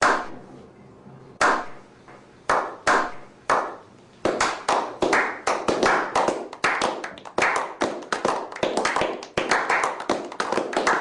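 A slow clap that builds: single hand claps about a second apart, quickening from about four seconds in into fast, continuous clapping.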